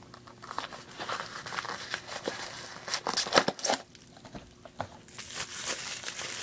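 Packing wrap crinkling and tearing as it is pulled off a wrapped item, in irregular handling noises, loudest about three seconds in with a brief lull a second later.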